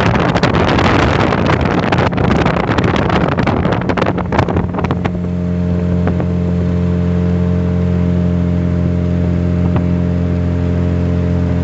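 Speedboat under way: engine noise mixed with wind buffeting the microphone and rushing water, crackling for the first few seconds. About five seconds in the rush drops away and the engine is left as a steady, even drone.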